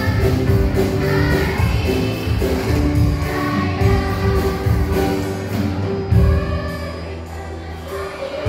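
Children's choir singing with instrumental accompaniment and a steady beat.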